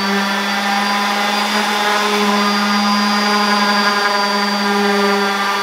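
Electric random orbital sander running steadily on a sheet of plywood: a constant-pitched whine.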